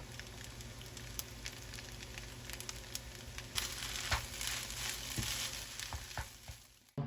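Egg fried rice sizzling in a frying pan, with scattered clicks of a utensil stirring it. The sizzle fades away just before the end.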